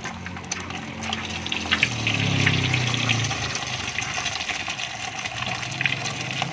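Tofu frying in a wok of hot oil: a steady sizzle with many sharp crackles, a little louder from about two seconds in.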